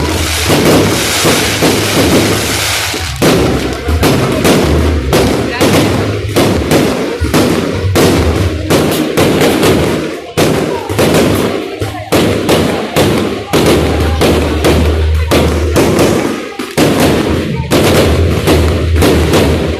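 Fireworks exploding in quick succession, a sharp bang every half-second or so without a pause, over a constant low rumble.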